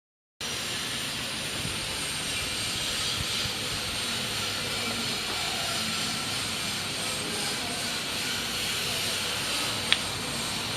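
Kawasaki Z1000's inline-four engine idling through an aftermarket sport exhaust, a steady even rush with little low-end thump, with one sharp click near the end.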